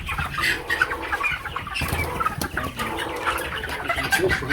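A large flock of young broiler chickens, close to four weeks old, peeping and clucking together in many short overlapping calls.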